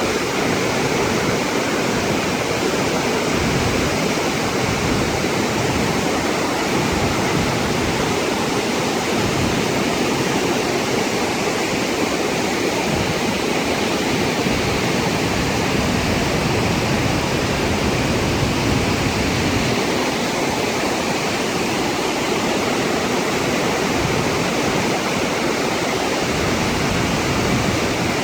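Flash-flood water pouring down a desert canyon's waterfall and rushing along the wash, a loud steady rush.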